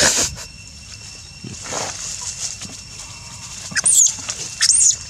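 A baby macaque screams twice in distress near the end, two high-pitched rising-and-falling cries less than a second apart, as another monkey attacks it. A brief loud noise comes at the very start.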